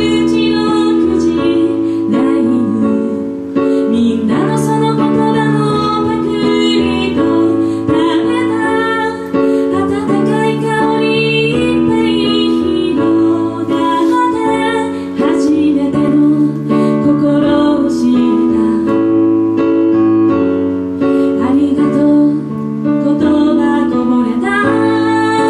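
A woman singing to her own electronic keyboard accompaniment played with a piano sound, held chords changing every second or two under the melody.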